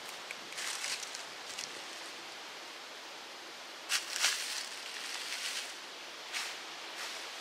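Footsteps rustling through dry leaves and brush, a few scattered steps over a steady background hiss, the loudest about four seconds in.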